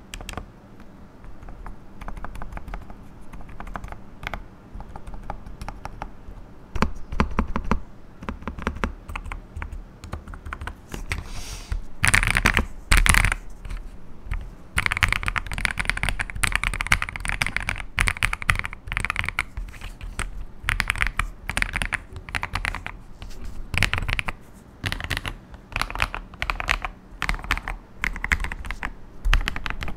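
AJAZZ AK870 mechanical keyboard being typed on: a rapid, irregular run of key clicks and clacks, growing louder and denser about twelve seconds in.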